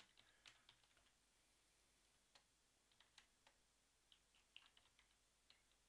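Faint, irregular clicks of computer keyboard keys being typed, a few keystrokes at a time with short pauses between.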